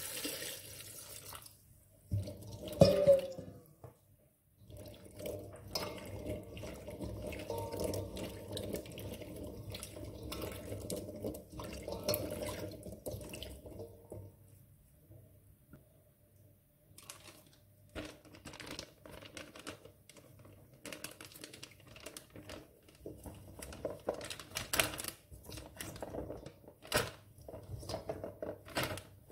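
Water poured onto raw green olives in a stainless steel bowl, a couple of loud knocks about two to three seconds in, then hands swishing the olives through the water to wash them. After a short lull, the olives click and knock against the metal bowl and a plastic zip bag as they are scooped in.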